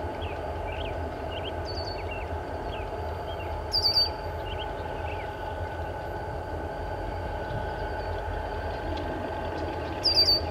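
EMD diesel freight locomotives running at low throttle, a steady low rumble, as one creeps slowly forward. A bird gives short bursts of high chirps about four seconds in and again near the end, with fainter chirps between.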